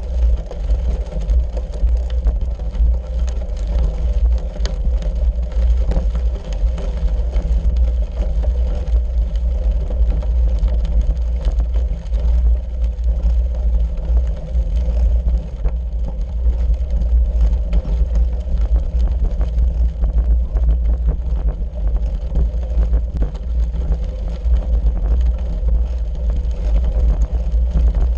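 Bicycle tyres rolling over a gravel road, picked up by a bike-mounted camera: a steady heavy low rumble with a constant fine crackle of loose stones.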